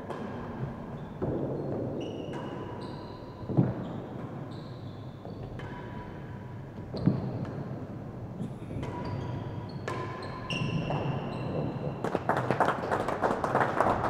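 Real tennis rally on an echoing indoor court: the solid ball struck by rackets and knocking off the walls and floor, with two hits standing out about three and a half and seven seconds in, and short high-pitched tones over it. Spectators clap near the end as the point finishes.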